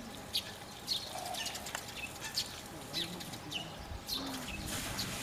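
A small bird chirping repeatedly, short high notes that fall in pitch, about two a second, with a brief rustling hiss near the end.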